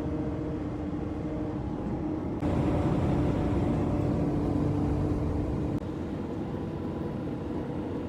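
Car driving at steady speed: a constant engine hum with road and wind noise, changing abruptly in loudness twice.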